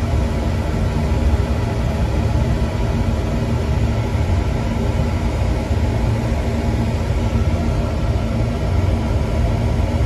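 Oil-fired Slant/Fin boiler running, its oil burner firing with a steady low rumble and a faint hum, partway through a long firing cycle.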